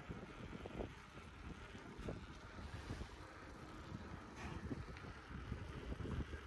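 Wind buffeting a phone's microphone during a bicycle ride, a low rumble with irregular small knocks and rattles from the bike rolling over the path.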